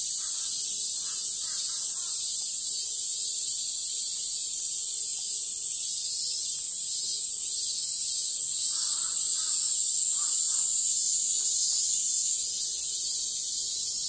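Insects buzzing in one steady, high-pitched drone. It sags slightly in pitch and loudness from about ten seconds in, then jumps back up a couple of seconds later.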